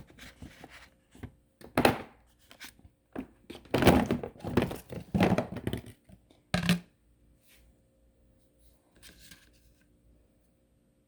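Potatoes being tipped and handled into a container: a run of knocks and rustling, busiest around four to five seconds in, with a last sharp knock before it goes quiet after about seven seconds.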